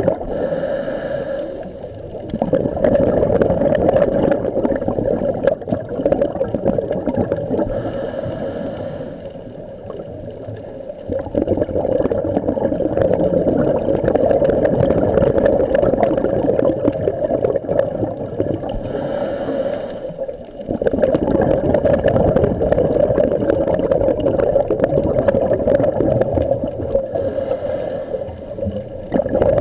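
Scuba diver breathing through a regulator underwater: a short hiss at each inhale, followed by several seconds of rumbling, gurgling exhaled bubbles. Four breaths come about every nine to ten seconds.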